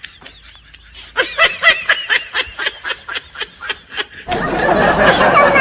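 A person laughing in a quick run of short snickering bursts, about six a second, starting about a second in. Near the end a louder, dense burst of noise takes over.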